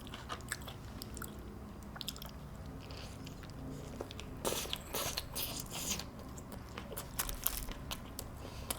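A person chewing and biting into a Sonic double smash burger, a run of short crunchy mouth clicks, heaviest about halfway through and again near the end.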